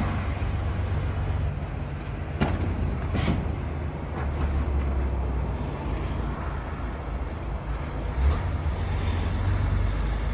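Steady road and engine noise from inside a moving vehicle on a motorway: a low drone, with a few brief knocks about two and three seconds in and again near the end.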